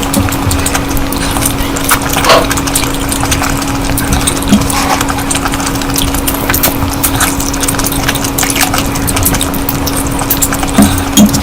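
Close-miked wet chewing and mouth clicks of a person eating curry, many small clicks over a moist, sloshing wash, with a steady low hum underneath.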